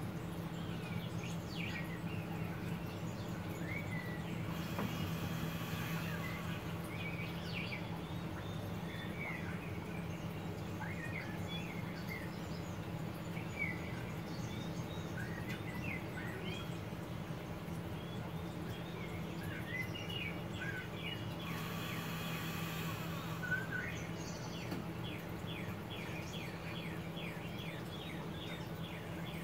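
Steady low hum of the pellet grill's combustion fan, running slowed by a fan rheostat, with songbirds chirping throughout and a fast run of chirps near the end. Two short, soft rushes of noise come about five and twenty-two seconds in.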